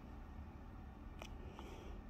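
Quiet indoor room tone: a faint steady low rumble with a single light click about a second in.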